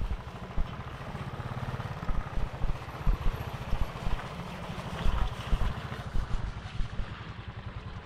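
Motorcycle engine running at low speed over a rough gravel and sand road, with irregular knocks and rattles from the bumps.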